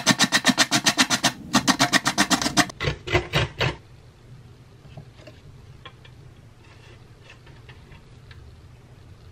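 Carrot being grated on a stainless steel box grater: fast, even rasping strokes, several a second, with a brief break about a second and a half in, stopping about four seconds in. After that only faint light clicks and scrapes.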